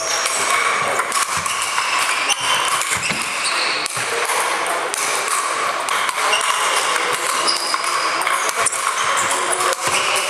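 Table tennis ball clicking back and forth off sandpaper bats and the table in a rally, over the steady echoing hubbub of a busy sports hall.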